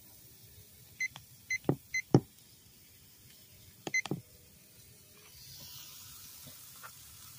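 Digital meat thermometer beeping as its buttons are pressed: three short beeps about half a second apart with firm plastic clicks and knocks, then another beep with clicks about four seconds in. Near the end a faint sizzle of steaks on a charcoal grill comes in.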